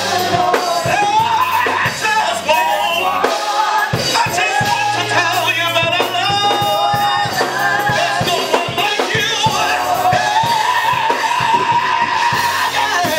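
A man sings a gospel song into a handheld microphone over instrumental accompaniment with drums, his voice gliding through long held notes.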